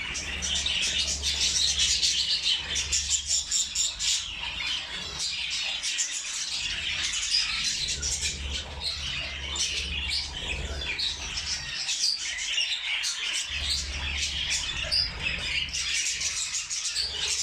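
Budgerigars and zebra finches chattering and chirping together in many overlapping calls, without a break, with a low rumble coming and going underneath.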